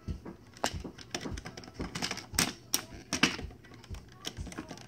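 Plastic toy train engine being handled and set on plastic track: irregular clicks and clatter of plastic on plastic.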